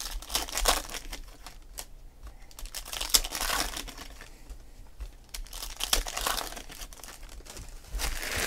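Foil trading-card pack wrappers being torn open and crinkled by hand, in several bursts of crackling a few seconds apart.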